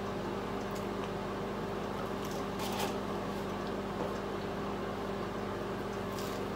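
Steady low hum and room noise, with a few faint clicks and mouth sounds from people chewing and handling chicken nuggets.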